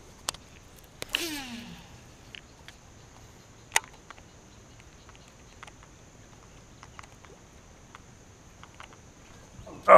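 A cast with a Daiwa Tatula SV TW baitcasting reel: a click about a second in, then the spool whirs briefly, falling in pitch as it slows. A single sharp click follows a few seconds later, with faint ticks as the reel is worked.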